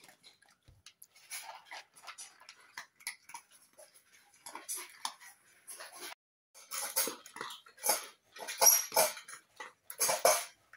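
Dogs eating dry kibble from their bowls: irregular crunching and chewing, fainter at first, then louder and denser after a brief break about six seconds in.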